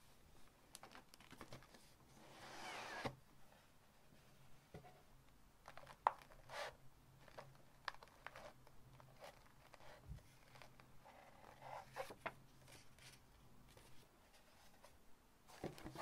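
Soft paper handling: faint rustling and crinkling of paper, with a longer sliding rustle about two seconds in. This is followed by scattered light flicks and taps as a box of stacked paper scraps is thumbed through.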